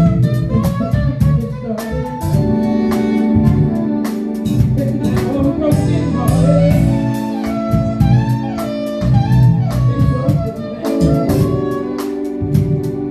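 Live band playing a jazz-soul groove: drum kit, electric bass and held keyboard chords, with a gliding melody line over them.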